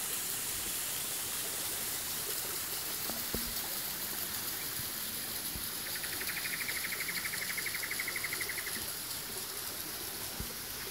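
Steady rush of a small creek flowing over rocks. From about six to nine seconds in, a rapid high trill sounds over it, and a few faint knocks come through.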